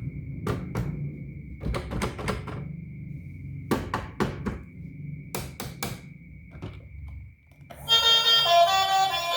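Irregular hard clicks and knocks, like plastic toy vehicles and their packaging being handled, over a faint steady high tone. About eight seconds in, the knocking stops and music starts.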